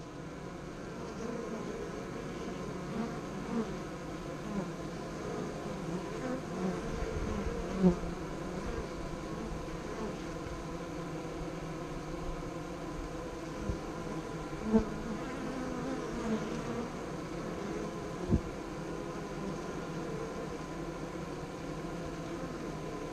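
Honey bees buzzing close by at a hive entrance, the pitch of the buzz rising and falling as single bees fly past, over a steady hum. A few sharp taps cut through it, the loudest about a third of the way in, just past the middle and at about three-quarters.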